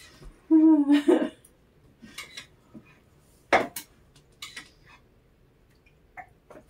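A short vocal hum about half a second in, then a few sharp clinks of plates and cutlery being handled, the strongest about three and a half seconds in.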